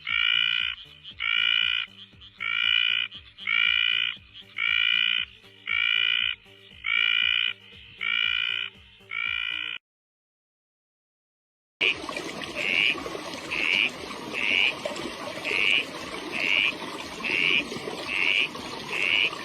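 A frog calling in a steady series of short, evenly spaced calls, a little more than one a second. The sound cuts out for about two seconds near the middle, then the calls resume over a louder background hiss.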